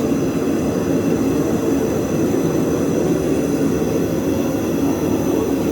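Propane forge burner running with a steady, even roar, with no hammer blows.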